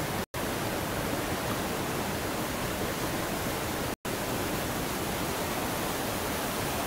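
Mountain river rapids rushing steadily over boulders. The sound cuts out completely for an instant twice: about a third of a second in and about four seconds in.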